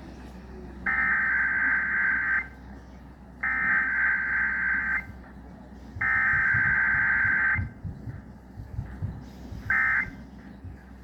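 Emergency Alert System SAME digital data bursts played over radio: three harsh, buzzy data bursts of about a second and a half each make up the alert header. Near the end come short bursts of the same tone that are the end-of-message signal. Faint radio hiss lies in the gaps.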